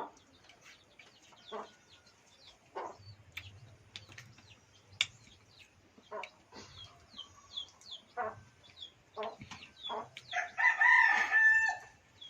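Chickens clucking, with many short high falling peeps throughout, typical of chicks. Near the end a rooster crows once, the loudest sound.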